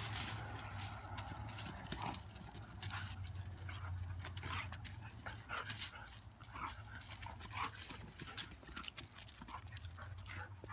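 A husky and a golden retriever play-fighting, with scattered short whines and yips and some scuffling underfoot.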